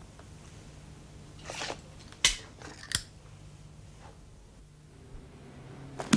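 Two sharp clinks of a drinking glass being handled, a little over two and three seconds in, after a brief rustle, over a faint steady low hum.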